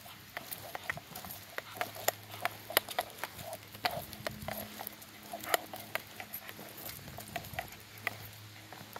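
Walking on a concrete path with two small leashed dogs: quick, irregular taps and clicks of footsteps and the dogs' claws and tags on the pavement.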